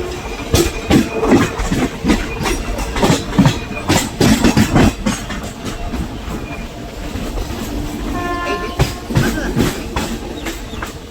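Electric suburban train's wheels clattering over rail joints, a rapid run of clacks for the first five seconds, then steadier running with a brief high squeal near eight seconds and a few more clacks.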